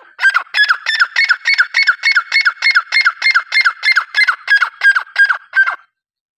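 Partridge calling: a fast, even series of about twenty short, sharp notes, each dropping in pitch, about three and a half a second, that stops abruptly near the end.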